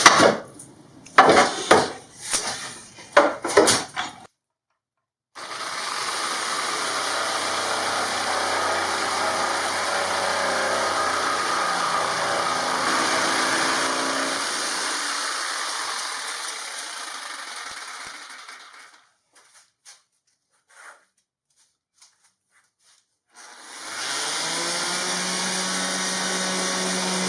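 Handheld electric jigsaw cutting steadily for about thirteen seconds, then winding down. A few sharp knocks come before it, and near the end a power tool starts up again with a rising hum.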